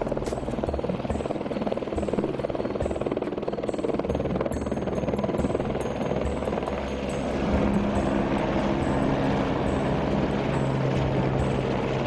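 Helicopter flying a concrete load on a long line, its rotor chopping steadily; a steady low hum joins in and it grows a little louder about halfway through.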